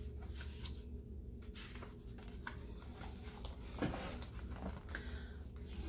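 Pages of a hardcover picture book being turned and handled: soft paper rustles and light taps over a low steady room hum.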